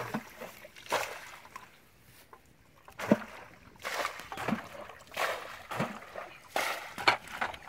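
Muddy water splashing and sloshing as a plastic bucket is dipped into a shallow ditch and the water thrown out, a splash about every second: bailing water out of the ditch.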